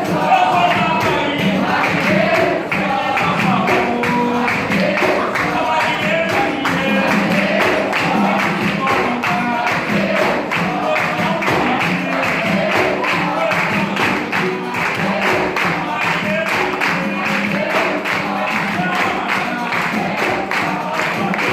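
Capoeira roda music: a group of voices singing over pandeiro and percussion, with a steady beat of strokes or hand claps.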